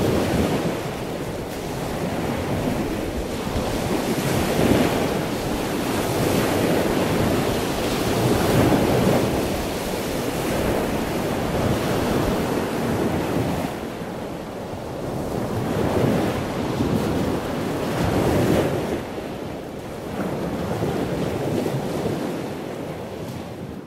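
Ocean surf: waves rushing in and drawing back, swelling every few seconds, fading out at the end.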